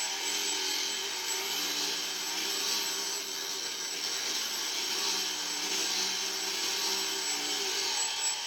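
Meccano model printing machine running. Its small electric motor drives the big cogs through a worm gear, making a steady, noisy mechanical whirr with a slightly wavering hum underneath.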